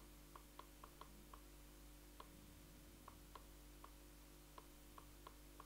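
Near silence broken by faint, irregular clicks, a few each second: a stylus tapping on a pen tablet while handwriting.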